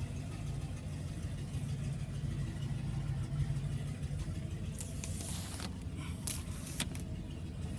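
A motor running steadily with a low, even hum, with a few short clicks or knocks between about five and seven seconds in.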